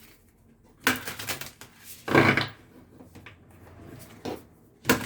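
A few knocks, clatters and rustles of objects being handled on a table, with a louder one about two seconds in.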